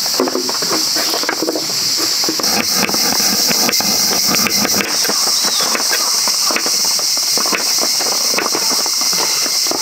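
Small knife slicing peeled garlic cloves on a wooden cutting board: a run of short cuts and taps, over a steady high-pitched hiss.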